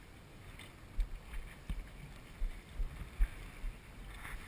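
Several dull low thumps at irregular intervals, about six between one and four seconds in, over faint wind noise.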